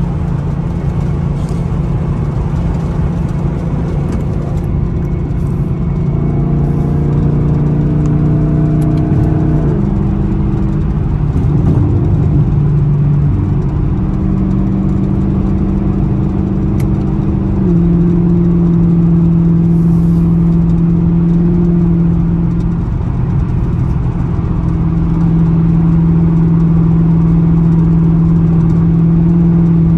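Straight-piped 6.2-litre V8 of a sixth-generation Camaro SS, heard from inside the car while cruising with a steady exhaust drone. About six seconds in it revs up, and near ten seconds in the pitch drops at an upshift. It then runs steady again, with a small pitch change around eighteen seconds in.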